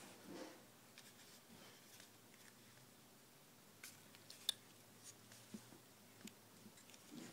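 Near silence with faint scattered clicks of a plastic airsoft foregrip-bipod being handled, and one sharper click about four and a half seconds in.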